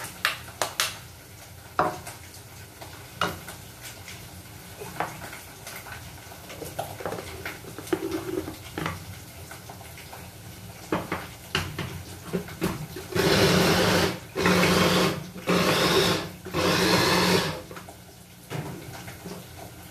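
Small food chopper's motor run in four short pulses of about a second each, starting about two-thirds of the way in, chopping boiled green chillies and a pinch of anchovies into sambal. Before the pulses, scattered knocks and clicks of the glass bowl and lid being handled.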